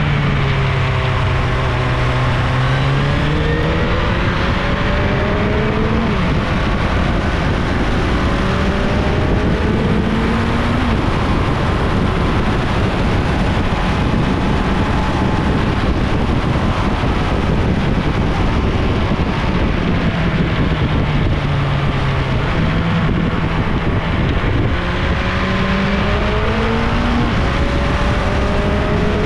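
1987 Suzuki GSX-R1100's inline-four engine under way: its pitch climbs in steps with a drop at each gear change through the first ten seconds, holds steady, then falls and climbs through the gears again near the end. A constant rushing noise runs under it.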